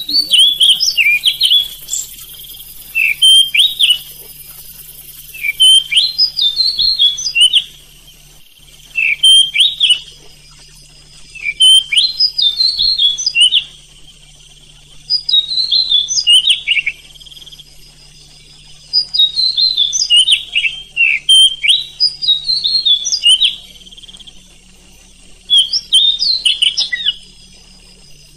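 Oriental magpie-robin (kacer) singing a run of loud phrases of quick, sharp whistled notes sliding up and down. The phrases come in bursts of one to two seconds, about every three seconds, with short pauses between them.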